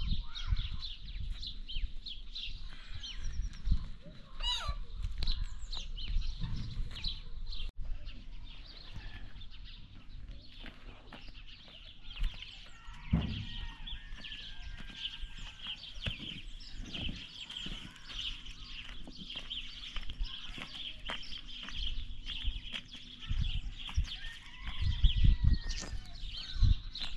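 Outdoor farmyard ambience: many small birds chirping without a break, with chickens clucking now and then. Low knocks and rustles of a rug being shaken out and of footsteps on stony ground come through it, strongest near the start and near the end.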